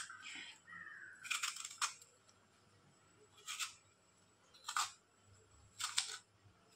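Apple being peeled with a hand peeler: several short scrapes of the blade stripping the skin, a second or so apart.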